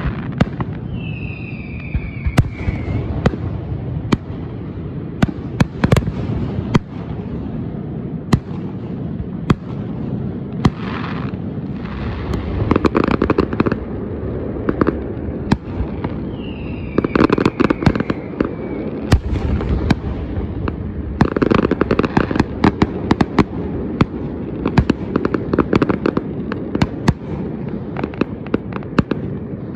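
Aerial fireworks going off: a continual run of sharp bangs and crackles over a low rumble, with several spells of dense crackling. A falling whistle is heard near the start and again a little past the middle.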